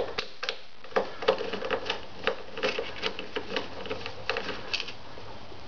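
Ratchet with a T30 Torx socket clicking in short runs of rapid ticks, tightening the headlight assembly's mounting bolts.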